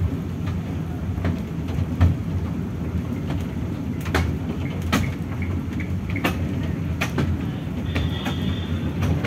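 Mini toy train rolling along its narrow-gauge track: a steady low rumble with irregular clicks from the wheels running over the rails.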